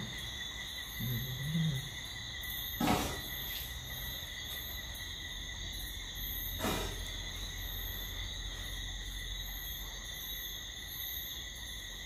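Night insect chorus, crickets or similar, trilling steadily at several high pitches over a low steady rumble. Two brief sharp knocks cut through, about three and seven seconds in.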